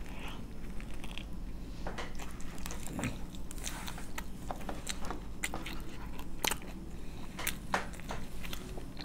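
A person biting into a fried chicken burger and chewing it close to the microphone, with many irregular crunches and wet mouth clicks.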